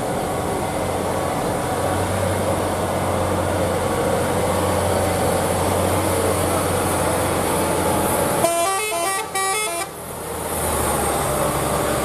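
A heavy truck engine runs steadily on the climb. About eight and a half seconds in, a multi-tone musical horn plays a quick run of changing notes for about a second and a half.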